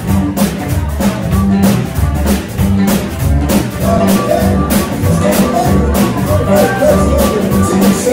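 Live blues band playing: electric guitars, a drum kit keeping a steady beat and a heavy bass line, with a harmonica wailing in bent, wavering notes from about four seconds in.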